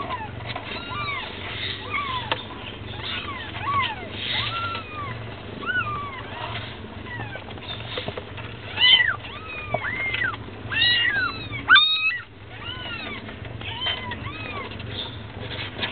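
Young kittens mewing: many short, high-pitched mews that rise and fall, overlapping almost continuously and loudest in a cluster about two-thirds of the way through. A steady low hum runs underneath.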